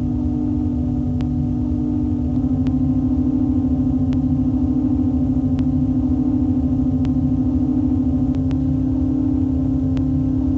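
Ambient sound-design drone: a steady low hum over a deep rumble, with the hum pulsing quickly from about two seconds in until about eight seconds in, and a few faint clicks scattered through it.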